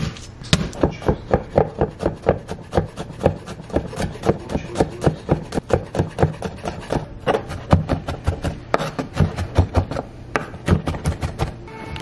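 Large kitchen knife chopping garlic cloves on a wooden cutting board: a quick run of knocks of the blade on the wood, about four a second.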